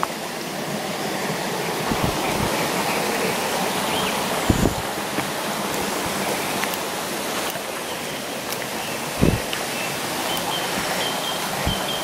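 A babbling brook rushing steadily, with a few soft low thumps of footsteps on the woodland path.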